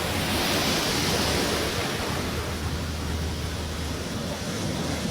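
Steady rushing noise of wind and water on the microphone, with a low steady hum underneath, typical of a boat under way.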